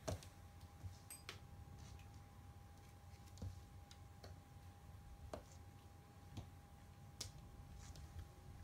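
Near silence, broken by faint, irregular taps and clicks, roughly one a second, the loudest at the very start, as a cat plays with a wand toy on a hard wood-look floor. A faint steady high hum runs underneath.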